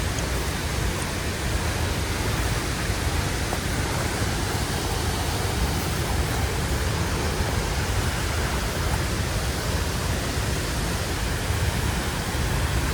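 Steady, unbroken rushing noise, like falling water or wind on the microphone, holding even throughout.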